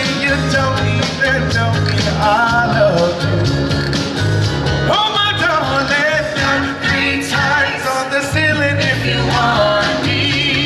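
Upbeat 1960s-style rock-and-roll song, a lead singer over bass and drums.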